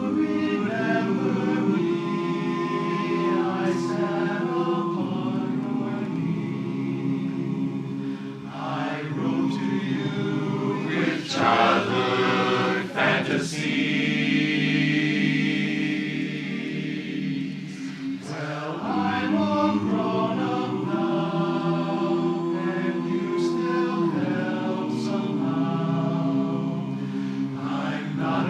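Barbershop chorus singing a cappella in close four-part harmony, a slow ballad with long held chords.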